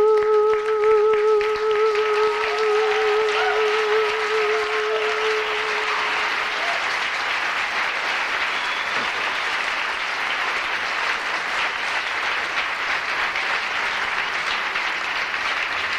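Audience applause at the end of a song, recorded live on cassette tape. Over the first six seconds a male singer holds a final note with vibrato, which then fades out while the clapping carries on.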